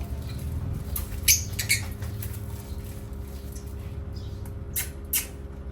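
A parrot giving short, sharp squawks, four of them in two quick pairs, over a steady low hum.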